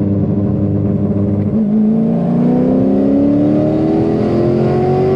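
Twin-turbo C6 Corvette V8 held at steady revs in third gear on rolling anti-lag while boost builds. About a second and a half in, the anti-lag is released and the engine pulls at full throttle, its pitch rising steadily. Heard from inside the cabin.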